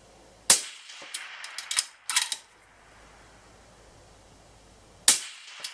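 Two shots from a suppressed Tikka T3x CTR bolt-action rifle in .260 Remington, about four and a half seconds apart. After the first shot a run of sharp metallic clicks and clacks is the bolt being worked to eject the spent case and chamber the next round. The bolt starts clicking again just after the second shot.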